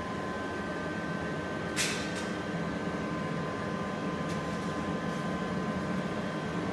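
Steady mechanical hum of room background noise, with a faint high whine, and a brief click about two seconds in.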